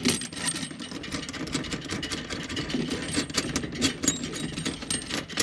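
A metal fixing nut spun by hand up the threaded bar of a kitchen mixer tap, giving a steady metallic rattle of rapid clicks.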